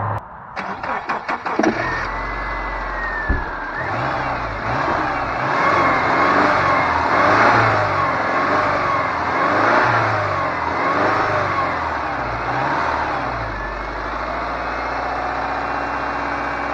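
A 1999 Subaru Forester's flat-four engine cranks briefly and catches, then is revved up and down several times before settling to a steadier idle. It is being revved to clear water through the intake after stalling in a water hole, with the soaked air filter taken out.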